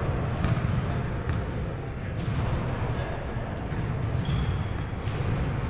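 Basketball being dribbled on a hardwood gym court, a run of low thuds echoing in a large hall, with a few short high squeaks of sneakers on the floor.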